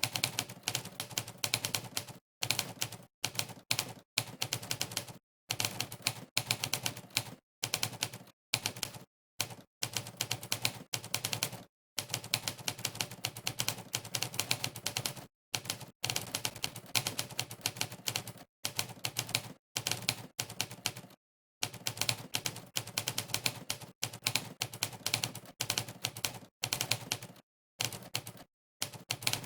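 Monkeytype's simulated typewriter key sound: rapid runs of sharp typewriter clacks, one per keystroke, broken every few seconds by short gaps of dead silence between bursts of typing.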